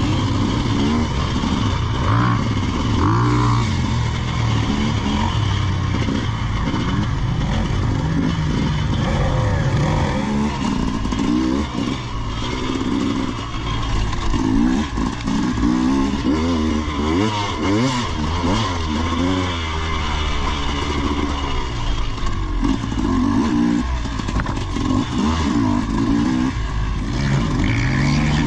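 Off-road motorcycle engine running under way, its revs rising and falling again and again through the whole stretch.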